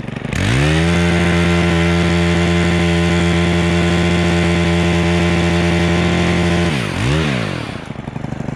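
Gas chainsaw revving up to full throttle and held steady for about six seconds while cutting through a crossing branch, then dropping back, blipping once and settling to idle.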